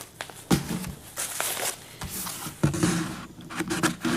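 Packs of GHS Boomer guitar strings being handled, with their paper and plastic packaging rustling and crinkling and a few sharp taps and knocks.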